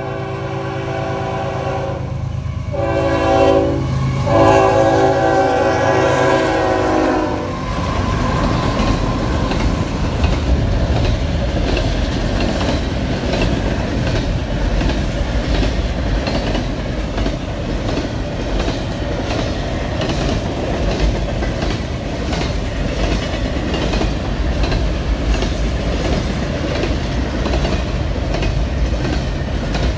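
Freight train's multi-chime air horn sounding over the rumble of the approaching lead diesel locomotive, NS 8103: a long blast, a short one and a long one, ending about seven seconds in. Then double-stack intermodal container cars roll past with a steady rumble and wheel clickety-clack over the rail joints.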